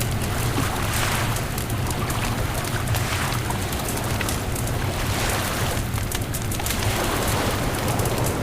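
Beach bonfire crackling with many sharp pops, over surf washing in and out in slow swells and a steady low wind rumble.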